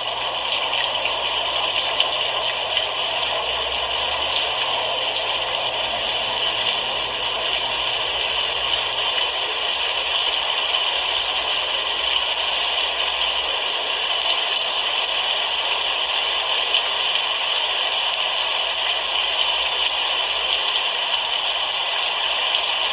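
Steady rain, a dense, even crackle of drops pattering on a surface without letting up.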